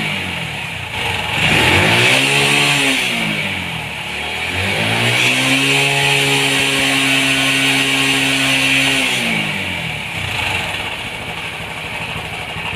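TVS XL 100 BS6 moped's single-cylinder engine being revved. It rises and falls twice, holds the higher revs for about four seconds the second time, then drops back to idle near the end.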